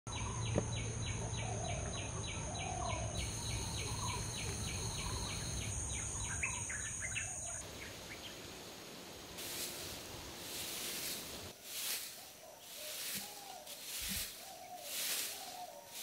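Birds and insects calling. In the first half a rapid chirping pulse repeats with steady high insect tones, with short bird calls through it. From about halfway a pulsing high sound comes and goes about once a second.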